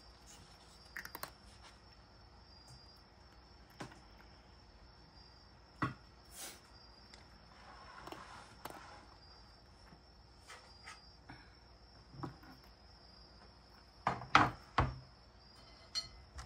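Cat eating the last small pieces of dry kibble from a wooden bowl: sparse crunches and clicks, with two louder knocks near the end. A faint steady high whine runs underneath.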